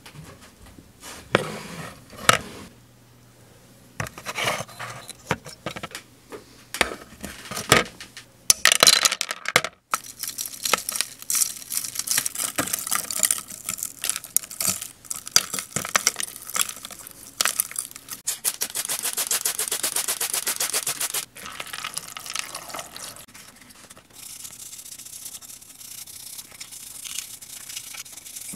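Small diecast and plastic model-car parts knock and click against a plastic bucket, then a bristle brush scrubs them in soapy water with quick, rapid strokes, quieter in the last few seconds.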